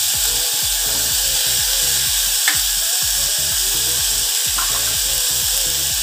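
Chopped onion, tomato, garlic and ginger frying in hot ghee in a steel saucepan, with a steady sizzle. Background music with a regular beat plays underneath.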